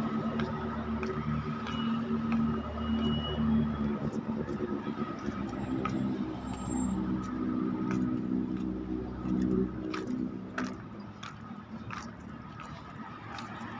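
Street traffic: car engines running on a busy road, with a low droning note that shifts in pitch and stops about ten seconds in.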